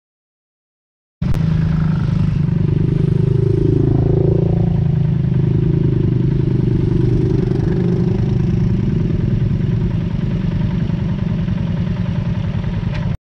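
Dual-sport motorcycle engine running steadily while riding. It cuts in suddenly about a second in after silence and cuts off abruptly near the end.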